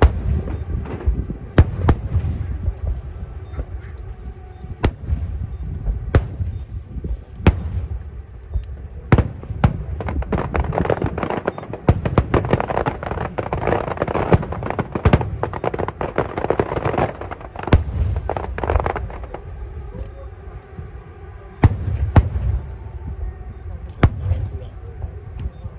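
Aerial firework shells bursting in irregular sharp bangs over a continuous low rumble, with a dense stretch of crackling about halfway through.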